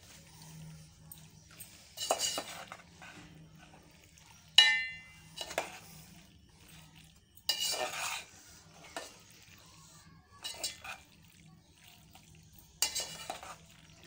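Metal spoon scraping and clinking against a cooking pot while stirring cooked shell macaroni, in scattered strokes every second or two, with one sharper ringing clink about four and a half seconds in.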